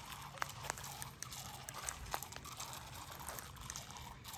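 Shallow lake water trickling and lapping over stones at the shoreline, with a few small sharp ticks and splashes.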